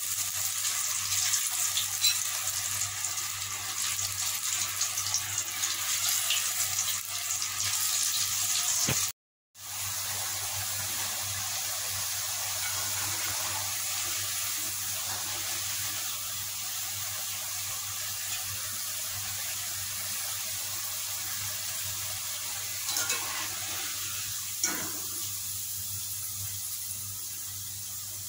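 Besan-coated potato fries deep-frying in hot oil, a steady sizzle. It cuts out briefly about nine seconds in and comes back quieter. Near the end there are two light knocks, likely the wire skimmer against the pot.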